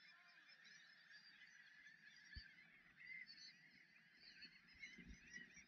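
Faint, continuous chatter of many birds calling in the distance, with two soft knocks.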